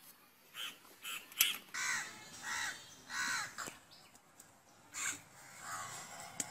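Crows cawing, a series of harsh calls about one a second, with a couple of sharp clicks among them.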